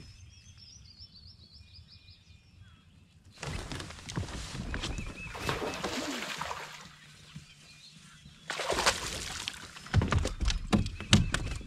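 Small birds chirping faintly for the first few seconds, then loud bursts of rustling noise and a run of sharp clicks and knocks about ten seconds in.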